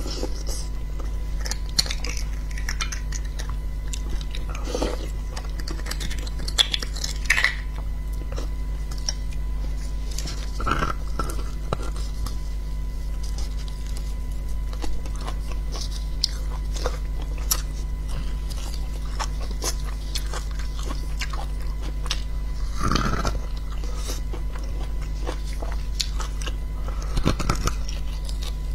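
Close-up eating sounds of beef bone marrow in chili sauce being sucked out of the bone and chewed: many small wet mouth clicks, with a few louder sucks spread through.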